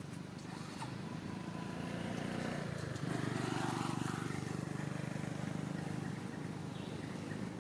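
A motor engine running with a steady low hum that grows louder about three seconds in and holds.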